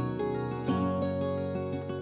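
Background music played on plucked strings, a sequence of picked notes.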